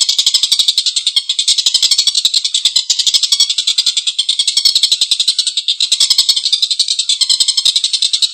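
Stork-billed kingfisher (tengkek buto) giving its long, harsh cackling call: a rapid, unbroken rattle of notes.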